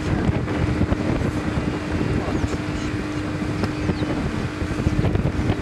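Motorboat engine running at a steady pitch under way, with wind buffeting the microphone in a low, uneven rumble.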